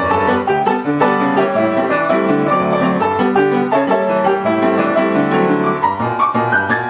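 Background piano music with fast, busy runs of many quick notes.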